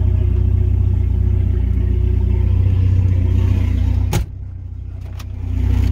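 Volvo 940 wagon running with a steady, loud low rumble from engine and road. About four seconds in, a sharp click cuts it to a quieter level, which swells again until a second click near the end.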